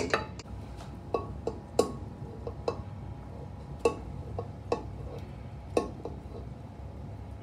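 Steel serving spoon clinking and scraping against a ceramic bowl as marinated beef is spooned out. The clinks are sharp and irregular, about nine of them, each with a short ring.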